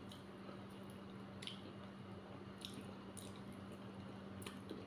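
Faint wet mouth sounds of someone eating dhedo with curry: chewing, with several short, sharp smacking clicks spread across the few seconds. A steady low hum runs underneath.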